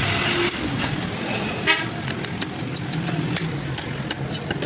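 Steady street traffic noise, with one sharp knock about a second and a half in and a string of light clicks after it, as a large curved fish-cutting blade works against a wooden chopping block.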